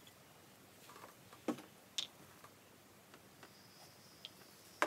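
Faint scattered clicks and light taps from handling the shotgun's steel barrel set and small cleaning tools, with a few sharper clicks: two about a second and a half and two seconds in, and the loudest just before the end.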